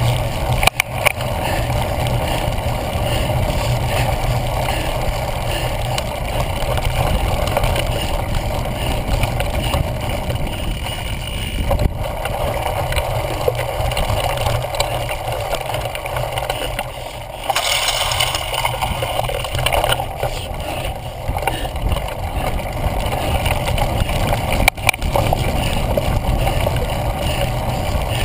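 Steady rumble of wind and vibration on a handlebar-mounted GoPro Hero 1 in its housing as a cyclocross bike rolls over rough grass, with a few sharp knocks from bumps.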